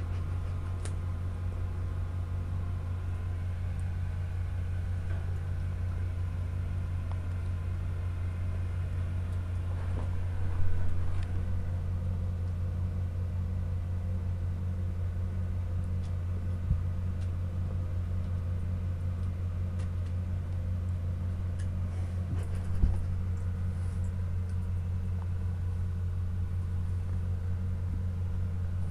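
A steady low hum throughout, with a few short thumps about 11, 17 and 23 seconds in.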